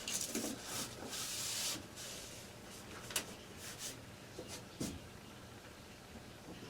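Wiping and rubbing inside a gas furnace cabinet during cleaning: a couple of seconds of rubbing, then a sharp click about three seconds in and a soft knock a little later.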